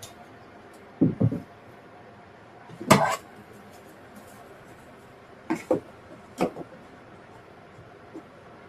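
Short knocks and clunks of objects being handled and set down: two together about a second in, a sharper, brighter one about three seconds in, then three more spread over the next few seconds.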